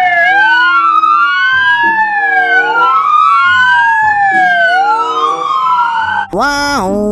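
Police siren wailing: two tones slowly sweeping up and down and crossing each other, each sweep taking about two seconds. It stops about six seconds in.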